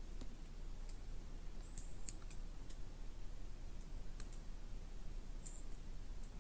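Summer woodland ambience heard from inside a tent: a steady low rumble under irregular, faint, high clicks and ticks, with one sharper click about four seconds in.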